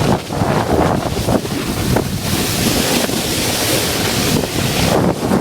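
Wind buffeting a moving camera's microphone: a loud, continuous rushing with low rumbling gusts.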